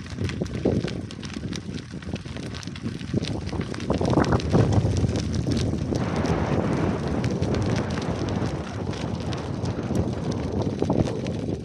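Wind buffeting a small action camera's microphone during a bike ride, a fluttering low rumble, with the crackle of bicycle tyres on a gravel path; a thicker hiss builds from about halfway through.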